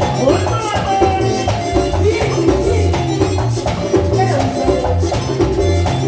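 Live merengue típico band playing at full volume: button accordion melody over a pulsing electric bass line, with the scraping güira and tambora drum driving a steady, fast dance beat.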